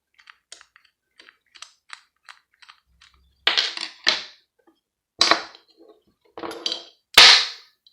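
A screwdriver working small screws in a plastic multi-socket adaptor: a run of light clicks, then several louder knocks and scrapes over the last four seconds, the last the loudest.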